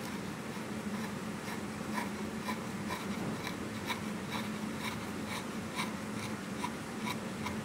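A hand chisel paring curled shavings from wood: short scraping strokes about twice a second, over a steady low hum.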